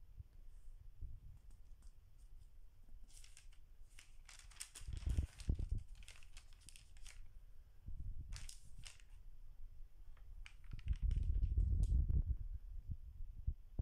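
Pages of a stamp stockbook being turned by hand: crinkly rustling of the stiff pages and their clear plastic strips in several spells, the longest a few seconds in, with low bumps from handling the album.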